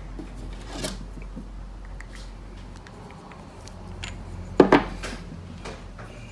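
Small drill parts being handled by hand: faint clicks and rubbing, a light knock about a second in and two sharp knocks, the loudest sounds, about four and a half seconds in, over a low steady hum.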